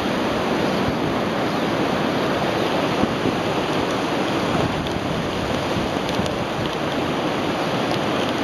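Hurricane wind blowing hard and steadily, a dense rushing noise with no letup.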